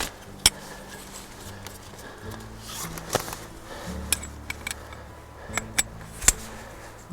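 Background music with low sustained chords, over which a series of sharp clicks and taps sound, about eight of them spread through the middle, from hammock suspension gear being handled and clipped.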